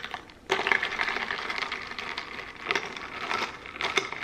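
Ice cubes clinking and rattling against a glass tumbler as a drink is stirred with a metal stirrer, in quick, irregular clicks that start about half a second in.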